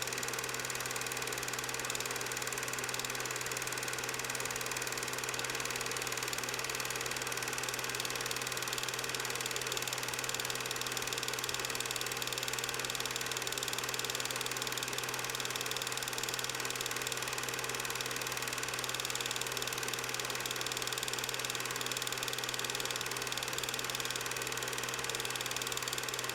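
A steady, unchanging droning hum made of many fixed tones, with no breaks or changes.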